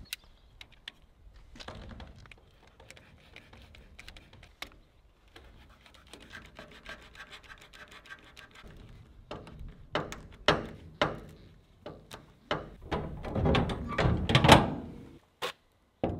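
Utility knife scraping and cutting at the door seal on a steel shipping-container door for a few seconds, followed by a run of sharp knocks and thunks on the steel, loudest near the end.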